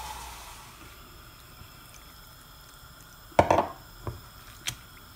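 Water pouring into a steel mixing bowl of flour batter, trailing off in the first half-second. About three and a half seconds in comes a loud sharp clank of the wire whisk against the steel bowl, then two lighter knocks.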